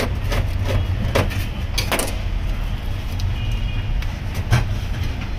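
A kitchen knife chops Oreo biscuits against a stainless-steel board: a quick run of sharp taps in the first two seconds, then it stops. A single knock comes about four and a half seconds in, over a steady low rumble of road traffic.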